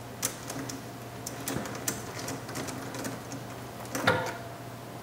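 Hand wrench working the nut on a car battery's negative terminal clamp to disconnect it: a series of light metallic ticks and clicks, with a louder clack about four seconds in.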